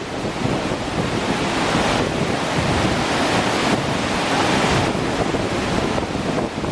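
Steady loud rushing noise with wind buffeting the microphone.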